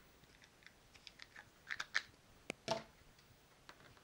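Light clicks and scrapes of an integrated-circuit chip being handled and pressed into its socket on the computer's circuit board. A cluster of sharp little ticks comes between about one and three seconds in.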